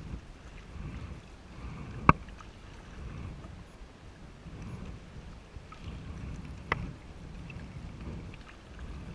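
Kayak being paddled: the paddle dips and swishes through the water in a steady rhythm, with two sharp knocks, one about two seconds in and another near seven seconds.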